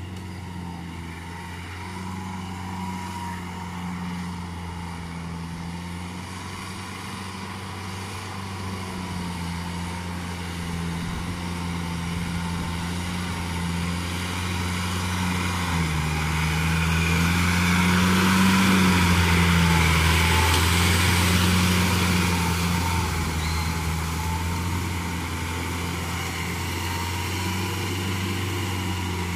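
Farm tractor's engine running steadily as it pulls a rotary tiller through a flooded paddy field. It grows louder a little past the middle as the tractor comes closest, then eases off.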